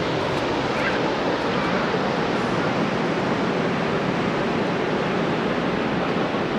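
Steady rush of ocean surf breaking on the shore.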